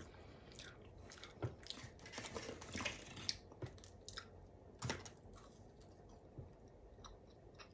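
A person chewing a soft, bread-like coconut pretzel close to the microphone, with scattered wet mouth clicks. Two louder bites come about one and a half and five seconds in.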